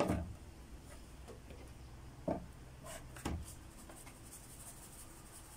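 Paper seasoning packet shaken and tapped over salted pork fat in a glass dish: light rustling with a few short taps.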